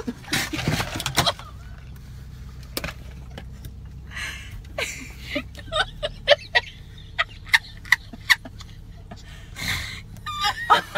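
A llama spits at close range with a short spraying burst, then a woman breaks into short, clucking bursts of laughter with her face in her hands.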